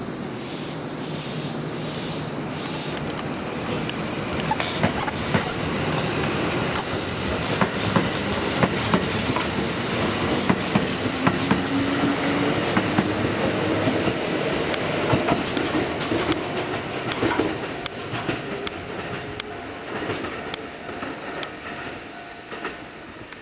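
Kintetsu 2000 series electric train running, its wheels clicking over rail joints, with a motor whine that rises in pitch through the middle as it gathers speed; the sound builds and then fades near the end.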